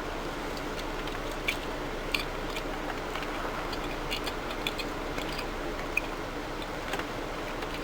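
Close eating sounds of a Boston cream muffin being chewed, with scattered small clicks and sticky mouth noises over a steady background hum.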